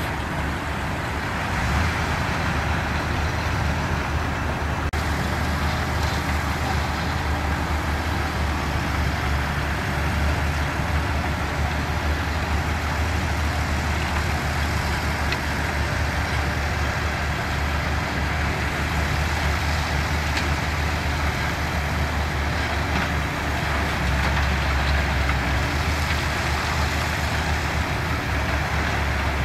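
Diesel engines of heavy earthmoving machinery, bulldozers and dump trucks, running steadily with a continuous low rumble.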